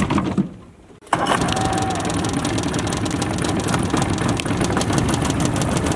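Johnson outboard motor running at a steady idle with a fast, rattly ticking. It comes in abruptly about a second in, after a brief lull.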